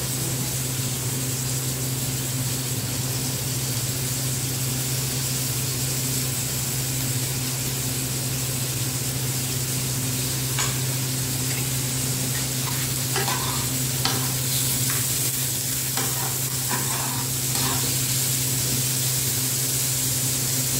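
Chopped vegetables and tomatoes sizzling steadily in a frying pan over a low hum, with a spatula clicking and scraping against the pan in the second half.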